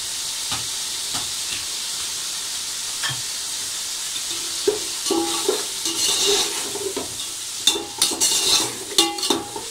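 Chicken slices sizzling in hot oil in an aluminium pot. From about halfway, a metal spatula scrapes and knocks against the pot with short ringing tones as the pieces are stirred.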